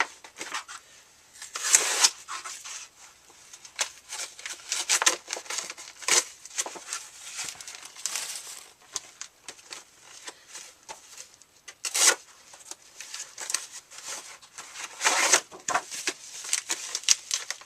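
Shipping packaging being torn and crinkled by hand: irregular rustling and tearing, with sharper tears about 2, 12 and 15 seconds in.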